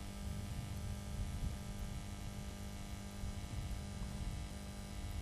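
Steady electrical hum with a faint hiss on a radio-style commentary channel, heard between announcements.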